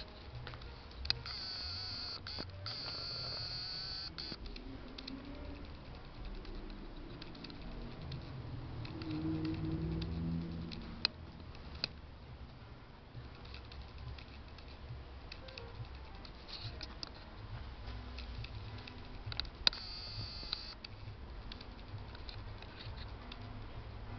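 Handling noise from a handheld camera: scattered sharp clicks and light rubbing over a low room rumble, with a few faint indistinct pitched sounds about nine to eleven seconds in.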